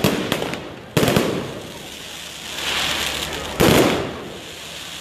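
Aerial fireworks bursting overhead: several sharp bangs close together at the start, a louder bang about a second in and another about three and a half seconds in, with crackling between them.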